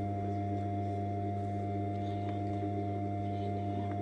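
Industrial sewing machine's electric motor running, a low steady hum with a fainter, higher whine above it that does not change.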